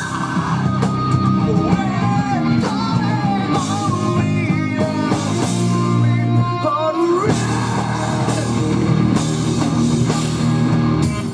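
Live rock band playing loud: distorted electric guitars through Marshall amps over bass and drums, with bending lead lines that keep up without a break.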